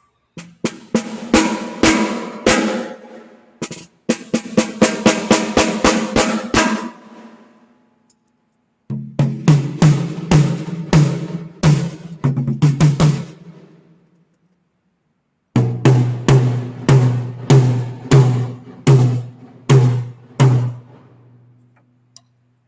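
Acoustic drum kit being sound-checked: one drum after another is struck repeatedly and left to ring, in four groups with short gaps between them. Each group is lower in pitch than the last, moving from higher drums down to the lowest, and the second group is a quicker run of hits.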